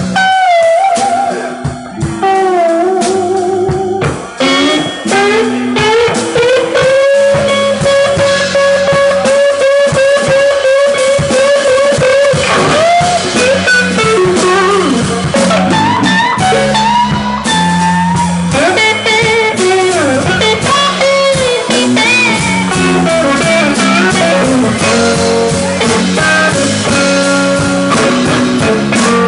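Live blues-rock trio playing: lead electric guitar with string bends and vibrato, holding one long wavering note for several seconds, over bass guitar and drum kit.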